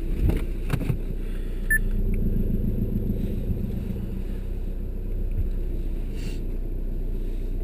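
Volkswagen Golf engine running at low speed, heard from inside the cabin as a steady low hum, a little louder between about two and four seconds in, with a couple of clicks about half a second in.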